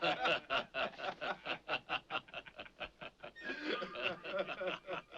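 Several men laughing in quick, rhythmic bursts of chuckles that loosen about three seconds in.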